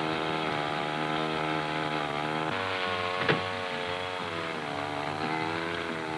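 Motor of a powered rescue tool running steadily while cutting a car roof, its pitch shifting slightly partway through, with one sharp crack of metal about three seconds in.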